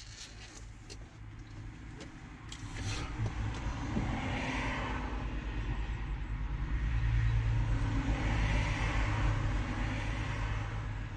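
Motor vehicle engine rumble, growing louder about three seconds in, with a rushing noise that swells and fades twice.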